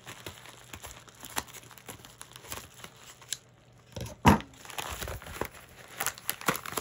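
Plastic bubble mailer crinkling and crackling as it is opened and handled, with one loud knock a little after four seconds in.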